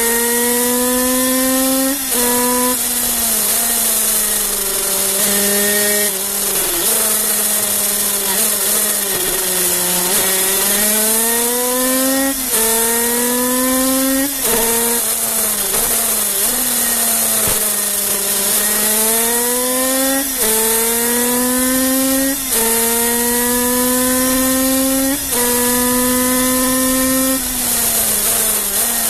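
Kreidler 50cc two-stroke single-cylinder racing engine at full throttle, heard on board: its high-pitched note climbs, then drops sharply with a brief dip at each of several quick gear changes, and twice sinks slowly as the bike slows for a bend before climbing again.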